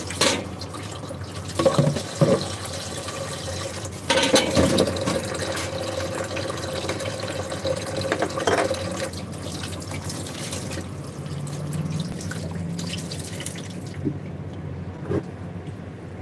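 Water running and splashing, with scattered knocks and clatter of kitchenware. The hissing of the water stops about two seconds before the end.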